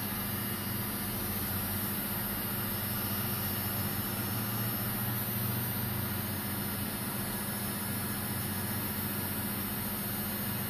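Electric heat gun running steadily: a constant motor hum under an even hiss of blowing air.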